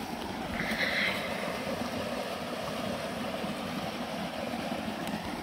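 Muddy floodwater of a swollen woodland stream flowing steadily across a track, a constant rushing noise.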